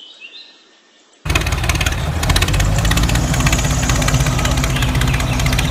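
Small electric motor of a miniature DIY toy tractor starting about a second in and running with a steady, fast buzz and gear whir.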